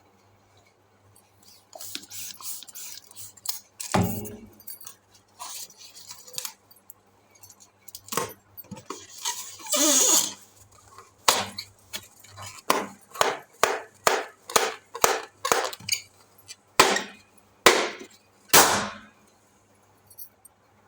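Rubber balloons being handled: rustling and rubbing, with a thump about four seconds in, a longer swish around the middle, then a run of short rubbing strokes, about two a second, near the end.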